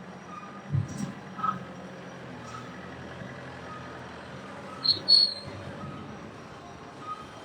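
Short warning beep repeating about once a second, like a reversing or crane alarm, over a low steady machinery hum. A dull thud comes about a second in and two sharp metallic clinks come about five seconds in.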